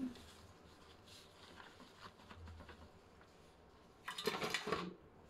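Paper towels rustling faintly as blanched oysters are patted dry, then a louder crinkle of the paper being lifted and crumpled about four seconds in.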